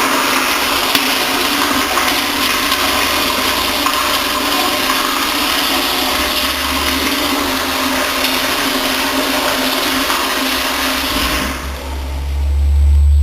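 Toilet flushing: a loud, steady rush of water that stops about eleven and a half seconds in, followed by a low rumble near the end.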